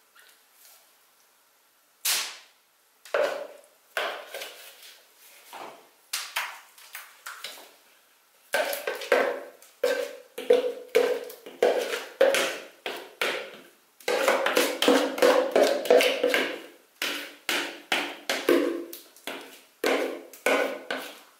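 Metal spoon scraping and knocking wet blended paste out of a plastic bowl. There is a single sharp knock about two seconds in, then scattered scrapes, and a quick, almost unbroken run of scrapes and knocks through the second half.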